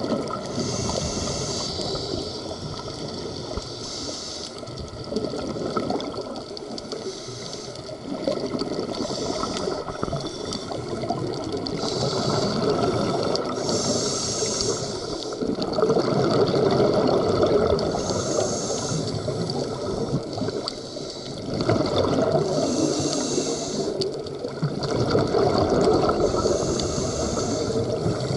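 Scuba diver breathing underwater through a regulator: a hissing inhale and a bubbling exhale, repeating every few seconds.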